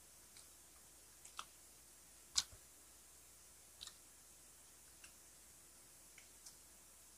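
Sparse, irregular soft clicks and smacks of mouths eating grilled skewered street food close to the microphone, with one sharper click about two and a half seconds in.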